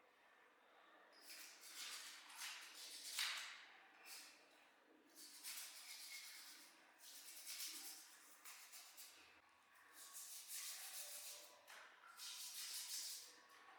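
Repeated bursts of faint hissing, scraping noise, each a second or two long with short gaps between.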